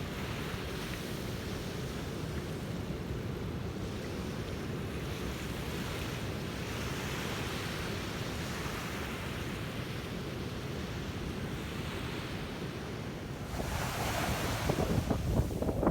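Sea waves washing onto a beach: a steady surf hiss that swells and eases slowly. Near the end, wind starts buffeting the microphone in irregular gusts, and the sound grows louder.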